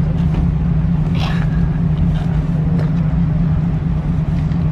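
Steady low hum of a motor vehicle engine idling, even and unchanging throughout.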